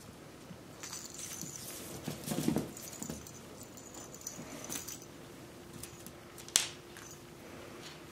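Mal-Shi puppies playing with a plush toy on a hard floor: scuffling and patter, a short rough growl about two and a half seconds in, and a single sharp knock about six and a half seconds in, the loudest sound.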